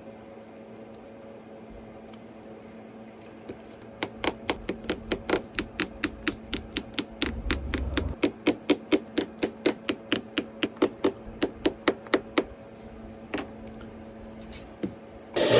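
A quick, regular run of light clicks or taps, about four a second for some eight seconds, over a steady low hum, then a few single clicks. A sudden loud rush of sound starts just before the end.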